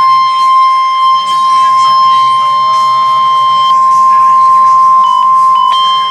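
NOAA Weather Radio 1050 Hz warning alarm tone: one loud, steady, high-pitched tone, the attention signal that comes before a National Weather Service alert message. It wavers briefly about five seconds in.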